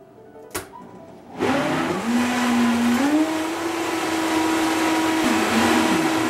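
High-powered countertop blender running, blending a thick smoothie of fruit and greens. A click comes first, then the motor starts about a second and a half in with a loud whir. Its whine steps up in pitch about three seconds in and then holds steady.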